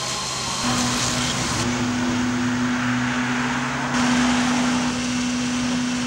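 Fire engine engines and pumps running steadily: a constant low hum under a dense hiss. The background changes abruptly twice.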